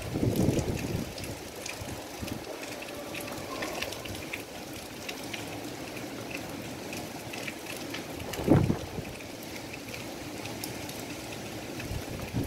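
Cyclone wind and rain: a steady rush of rain with many small drop ticks, and strong gusts buffeting the microphone right at the start and again about eight and a half seconds in.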